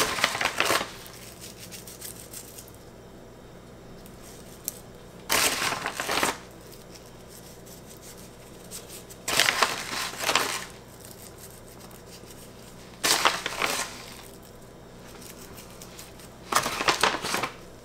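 A bag of dried rose petals crinkling and rustling as a hand takes out pinches, with the crisp petals crushed between the fingers as they are sprinkled. It comes in five short bursts about a second long, several seconds apart, over a faint steady hum.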